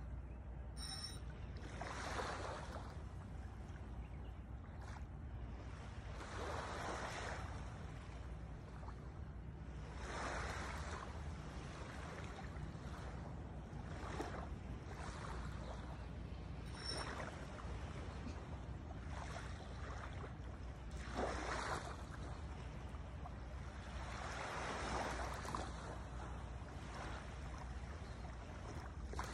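Small waves washing in on a sandy shore every few seconds, each wash a soft swell of noise lasting a second or two, over a steady low wind rumble on the microphone.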